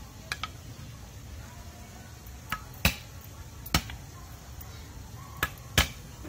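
Meat cleaver chopping on a round wooden chopping board while mincing lemongrass and garlic: several separate sharp knocks, a second or so apart, the loudest about three seconds in, near four seconds and near the end.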